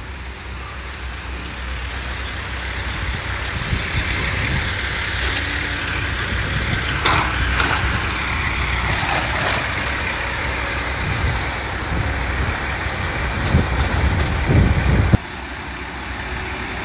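Heavy diesel demolition machinery running at a building teardown, a steady engine rumble with intermittent knocks and scraping of debris. The sound drops suddenly about two seconds before the end.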